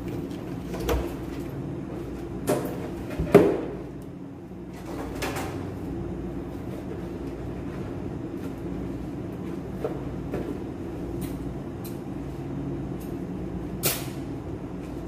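Handling noises as balloon supplies are worked with: a few scattered knocks and clicks, the loudest about three seconds in and another near the end, over a steady low hum.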